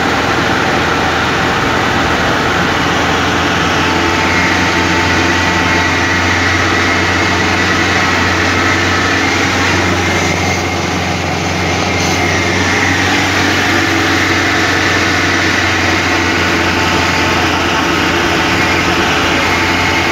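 Engine of a moving vehicle running steadily with road noise, heard from inside the cabin, easing off briefly about halfway through.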